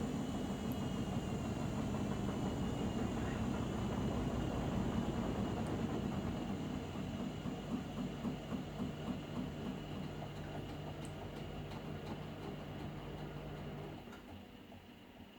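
A Hotpoint appliance's motor running and slowly winding down, its high whine gradually falling in pitch. About halfway through comes a run of rhythmic clicks, about three a second, and the steady hum cuts out near the end.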